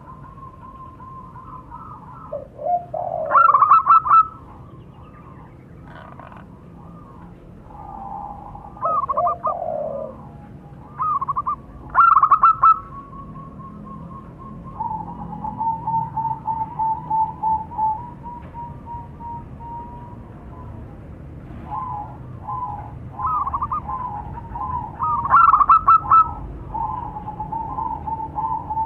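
Zebra doves (perkutut) cooing in answer to one another, with higher and lower voices overlapping. Several loud, fast-trilled coo phrases are separated by quieter calls, and a long run of quick, even notes comes in the middle.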